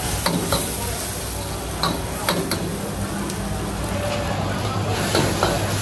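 Hawker-stall cooking noise: a steady low hum under a haze of kitchen sound, with several sharp metal clinks of cooking utensils, three of them together around the middle.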